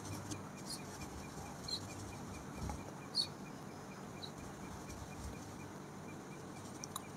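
Quiet hall ambience with low hiss and a few faint, short high chirps scattered through it.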